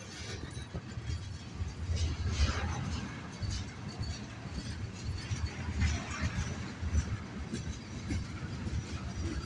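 Freight train of loaded tank cars rolling past close by: a steady low rumble with uneven clatter of steel wheels on the rails, and a brief higher-pitched scraping noise about two seconds in and again about six seconds in.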